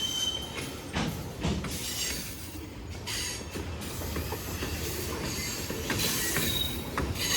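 Freight cars of a long Norfolk Southern train rolling past with a steady rumble, a brief high wheel squeal at the start and a couple of wheel clicks over the rail joints about a second in.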